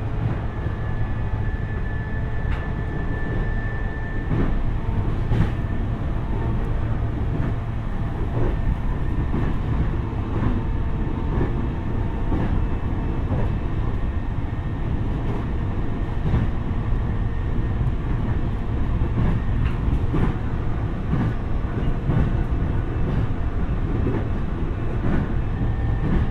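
Running noise of an E531-series electric train heard from inside motor car MoHa E531-3007: a steady rumble of wheels on rail with occasional clicks over rail joints. A thin high tone sounds during the first few seconds.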